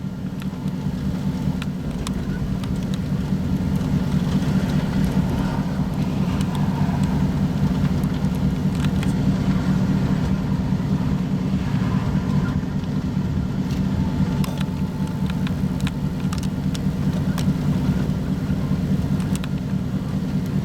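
A car driving, with steady engine and road rumble that grows louder over the first few seconds and then holds.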